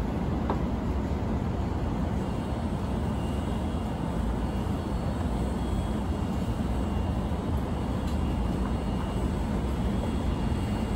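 Steady low hum and rumble inside a commuter electric train standing at the platform with its doors open, its onboard equipment running while stationary.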